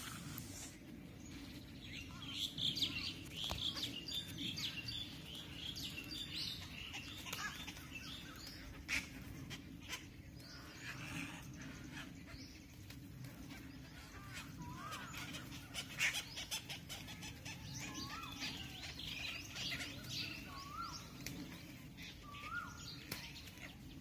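Many birds chirping and calling, with high chirps throughout and a short upward-hooked call repeated four times in the second half, over a low steady rumble.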